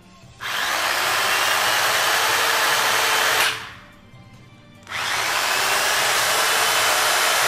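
Ryobi corded electric chainsaw, fitted with a Makita bar and chain, run with no load in two trigger pulls: once from about half a second in, and again from about five seconds in. After the first run the motor and chain stop within about half a second, the electric brake at work.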